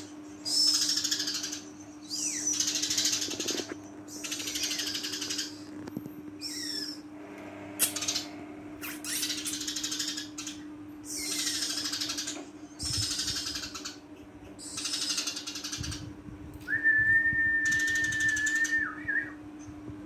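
Caged Eurasian tree sparrow singing in repeated bursts of rapid, high chattering chirps, each about a second long with short pauses between. A steady low hum runs underneath, and a flat whistle-like tone sounds for a couple of seconds near the end.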